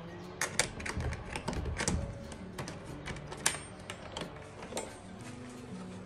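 Key turning in a newly fitted mortise door lock: a quick, irregular run of sharp metallic clicks and clacks as the lock mechanism is worked, fading out about five seconds in.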